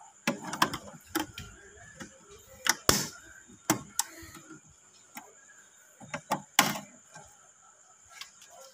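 Plastic grille lid and latch of a small plastic fish tank clicking and knocking as a hand presses and works it: sharp, irregular clicks in clusters, over a faint steady high hiss.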